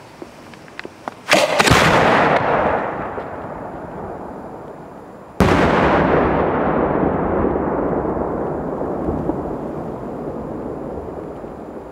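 Aerial firework shells bursting: a sharp double bang about a second and a half in, then another single bang about five and a half seconds in. Each is followed by a long rolling echo that slowly dies away.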